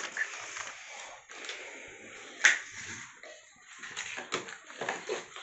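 Unboxed accessories and their packaging being handled: rustling with scattered light clicks and knocks, and one sharper click about halfway through.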